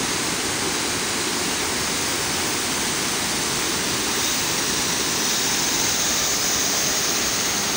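Steady rush of a waterfall, an even, unbroken roar of falling water.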